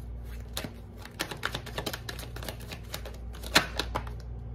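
A deck of Angel Answers oracle cards being shuffled by hand: a quick, irregular run of card clicks and flicks, with one louder snap about three and a half seconds in.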